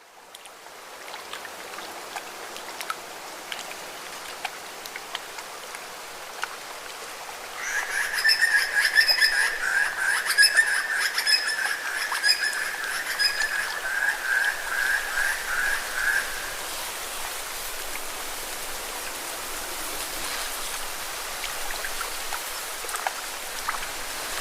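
Steady hiss of falling water with scattered drips and ticks. About a third of the way in, an animal's pulsing trill starts over it, the loudest sound here, slowing into separate pulses before it stops after about nine seconds.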